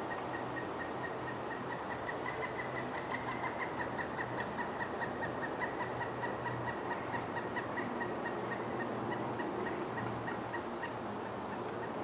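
A long, steady trill of rapidly repeated notes at one pitch, an animal call that keeps going without a break.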